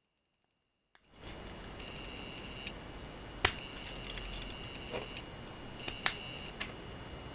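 Two sharp clicks of Lego bricks being handled and snapped together, the first loudest, over a steady hiss with a thin high whine that comes and goes.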